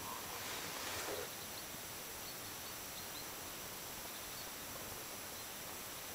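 Quiet lakeshore ambience: a steady faint outdoor hiss with a few faint, short, distant bird chirps, and a brief soft rustle about a second in.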